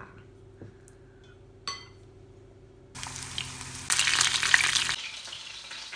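Cornstarch-coated chicken pieces shallow-frying in hot oil in a pan, sizzling. The sizzle starts suddenly about halfway through and is loudest shortly after. Before it, a spoon clinks once against a glass mixing bowl.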